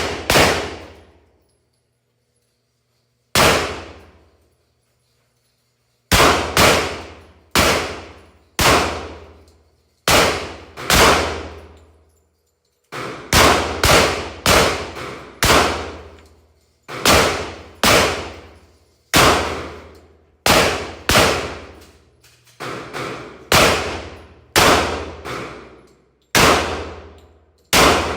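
Glock 30 .45 ACP pistol firing a long string of about thirty shots, irregularly spaced, some in quick runs half a second apart, each shot with a ringing tail that fades over about a second.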